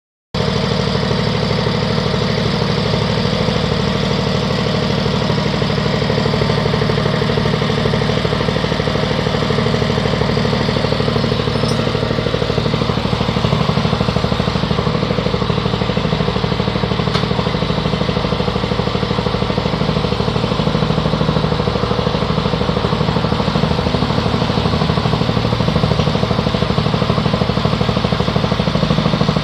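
Motor-driven fish-feed pellet machine running steadily.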